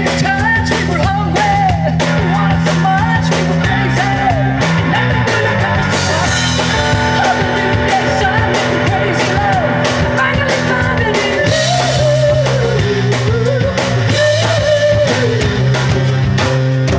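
Live rock band playing: a woman sings lead over electric bass, two drum kits and guitar with a steady beat.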